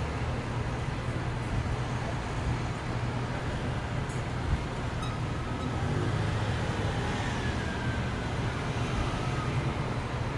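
Steady rumble of city road traffic, with a faint falling whine about seven seconds in.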